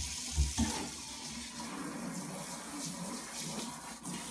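Cold water running steadily from a newly installed kitchen faucet into the sink, with two low thumps about half a second in.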